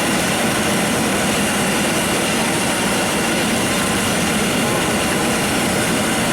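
Steady, loud background din with indistinct voices mixed in.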